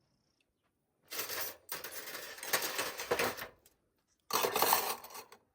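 Metal kitchenware clattering and clinking as it is handled, in two bouts: a longer one of about two and a half seconds, then a shorter one near the end.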